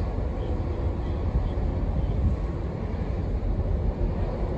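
Steady low rumble from the passenger/ro-ro ferry Ben-my-Chree manoeuvring slowly close by, its engines and propeller wash churning the water.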